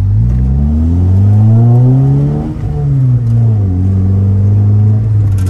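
Honda Civic Si's K24 four-cylinder engine, heard from inside the cabin, revving up steadily for about two and a half seconds as the car pulls away uphill in first gear after the handbrake is dropped. The revs then fall back and hold steady.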